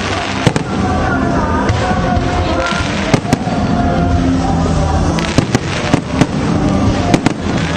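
Fireworks going off in sharp cracks, a few at first and then a quick cluster in the second half, over continuous music.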